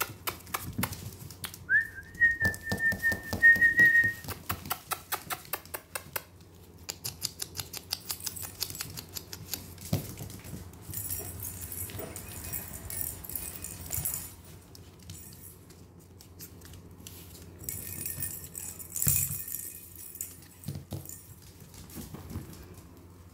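Yorkie puppies' claws clicking and scrabbling on a hard vinyl floor as they wrestle and scamper, in rapid runs of ticks that thin out past the middle. About two seconds in, a high, steady whistle-like whine rises briefly, then holds for about two and a half seconds. Later there are bursts of soft scratchy rustling.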